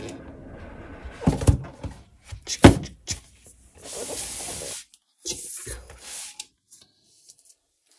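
Cardboard laptop box being opened by hand: a few knocks as the lid is pulled off and set down, the loudest about two and a half seconds in. Then stretches of rubbing and sliding of cardboard and paper as the laptop is uncovered in the box base.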